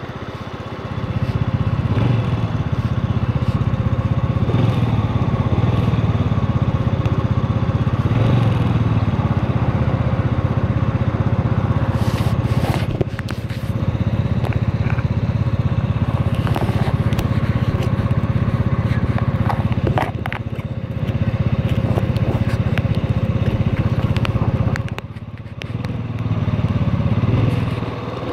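Motor scooter engine running under throttle while riding, easing off briefly a few times and settling lower near the end.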